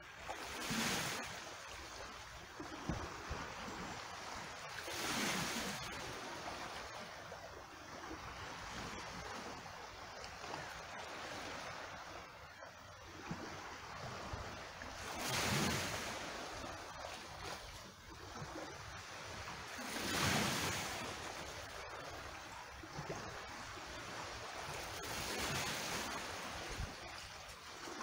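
Small waves washing in over a rocky, cobbled shore, five surges several seconds apart over a steady trickle and splash of water from a rock pool.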